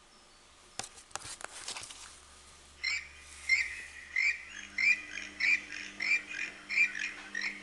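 Recorded toucan calls played through the small speaker of a children's sound book: a steady run of short repeated calls, nearly two a second, starting about three seconds in. Before them come a few soft clicks as the page is turned and the sound button pressed.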